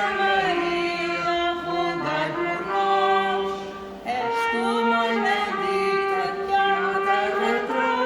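A group of men and women singing together in long held notes that change every second or two, with a brief dip for breath about four seconds in.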